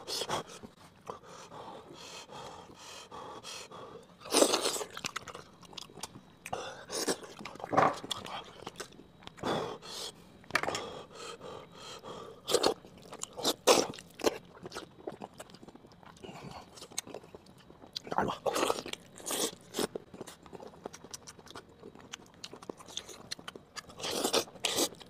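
Close-miked chewing and biting of boiled sheep head, with fingers pulling apart its soft skin and meat, in short irregular bursts.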